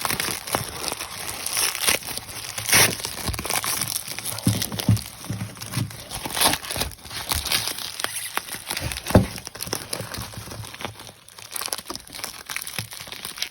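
Plastic bubble wrap crinkling and crackling as it is pulled and unwrapped by hand, in irregular rustles with a few sharper snaps and tearing sounds.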